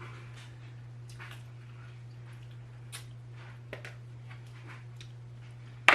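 Scattered soft cracks, squishes and clicks of cooked lobster shells being broken and picked apart by hand, with one sharp loud click near the end, over a steady low hum.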